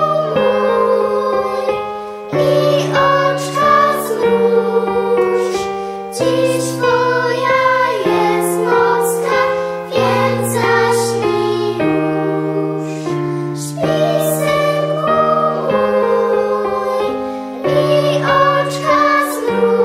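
Children's choir of girls singing a song with piano accompaniment.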